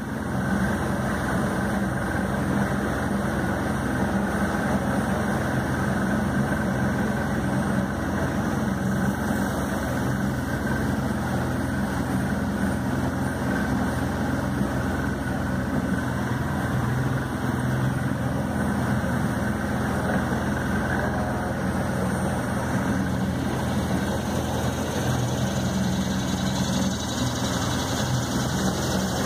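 A boat's outboard motor running steadily at low speed.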